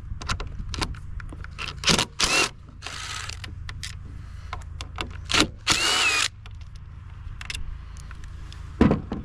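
Cordless drill-driver spinning screws out of a generator's housing in several short runs, about two, three and six seconds in, its motor whine dipping and rising as it works. Clicks and rattles of screws and parts being handled in between.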